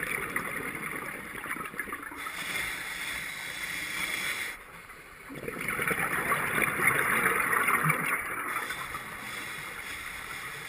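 A scuba diver's breathing through a regulator, heard underwater through a camera housing: gurgling exhaled bubbles that swell and fade, with a short lull about halfway through.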